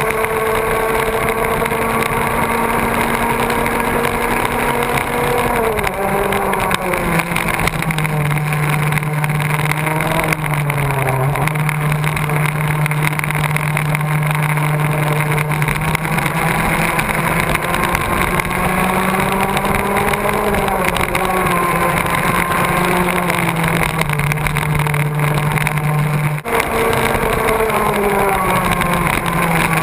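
Racing kart engine at race speed, heard from on board the kart. Its pitch drops off for the corners and climbs again on the straights several times over, with a brief break near the end.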